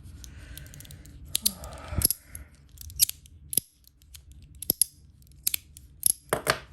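Fidget slider being worked back and forth by hand, its slide running along the track on a roller bearing and snapping into place with sharp, crisp clicks, about ten of them at irregular intervals, some in quick pairs. A faint scraping accompanies the sliding during the first couple of seconds.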